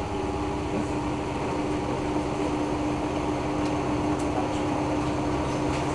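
Washing machine running with a steady motor hum.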